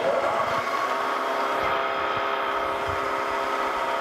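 Wells-Index vertical milling machine switched on right at the start, its spindle running with a steady whine of many tones, while a drill bit is fed down into a steel part to drill a hole.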